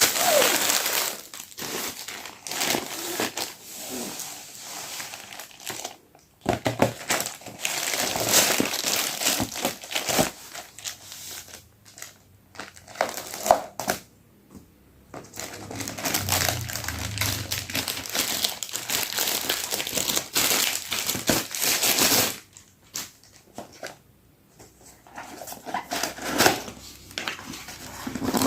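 Parcel packaging crinkling and rustling as it is unwrapped by hand, in irregular bursts with a few short pauses.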